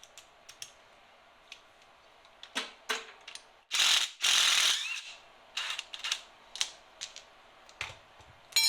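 Hand work on a snowblower's cable and its metal fittings: scattered metallic clicks and rattles, with a louder scraping rasp lasting about a second, four seconds in. A metal part rings briefly near the end.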